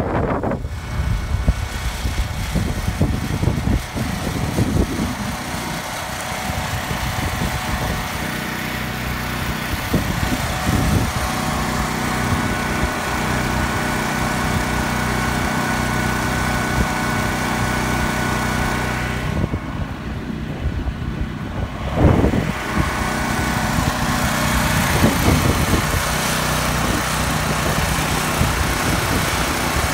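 Small portable gasoline engine running steadily at a constant speed, powering the pump that fills the siphon pipe with water. A brief thump about 22 seconds in.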